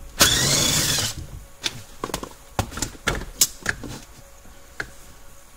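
A power driver with a 10 mm socket runs for about a second, spinning out a hood-release bolt, then a string of separate sharp clicks and knocks.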